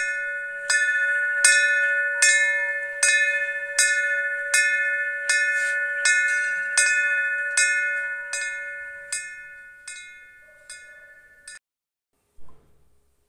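A bell struck over and over at an even pace, a little faster than once a second, its ringing tone held between strikes. The strikes grow softer and die away well before the end.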